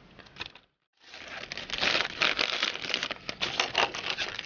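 Plastic mail packaging being handled, crinkling and rustling in a dense run of crackles, after a brief cut-out of all sound about a second in.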